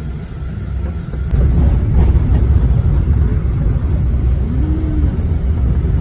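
Moving vehicle's low, steady rumble of engine and road noise, getting louder about a second in.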